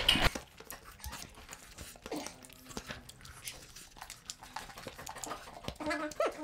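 Close-up eating sounds of people eating chicken curry and rice by hand: chewing, lip smacks and small wet clicks, scattered and irregular. A brief murmur of voice comes near the end.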